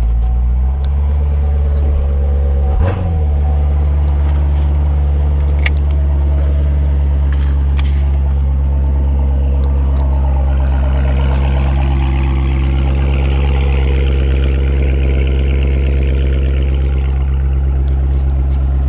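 2018 Corvette Grand Sport's 6.2-litre LT1 V8 idling steadily, an engine the owner judges to sound good. There is a single knock about three seconds in, and the idle takes on a rougher, brighter edge from about ten seconds in until near the end.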